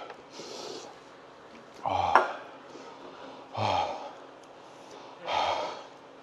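A man breathing hard against the burn of extremely spicy food: hissing in-breaths, then three loud voiced 'hah' gasps out, about every second and a half to two seconds.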